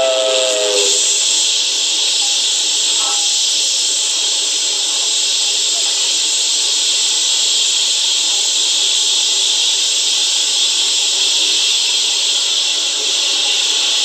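Steam locomotive's escaping steam hissing steadily, heard from a 45 rpm record playing on a portable turntable. A steam whistle's chord cuts off about a second in.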